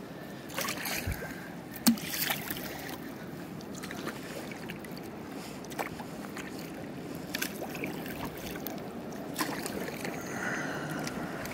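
Kayak on river water: water lapping and splashing around the hull, with scattered sharp clicks and knocks. The loudest knock comes about two seconds in.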